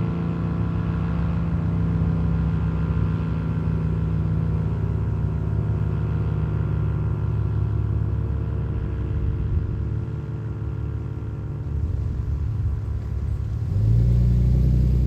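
ACA Cyclone 125 outdoor warning siren sounding several tones together, which slowly fade, over a steady low rumble. A louder low rumble comes in near the end.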